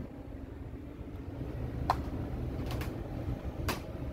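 A few sharp knocks and taps as a person climbs through the hatch and down into an enclosed lifeboat, over a low steady hum. The knocks fall about two seconds in, twice close together shortly after, and once more near the end.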